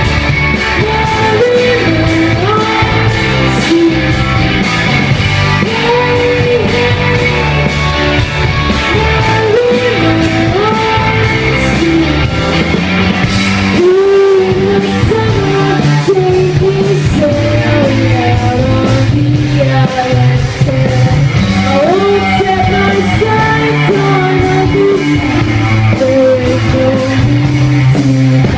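Live indie pop band playing a song: a woman singing lead over electric guitars, bass guitar and drums.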